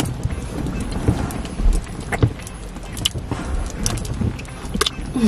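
A couple kissing: scattered lip smacks and small clicks over a low, steady rumble.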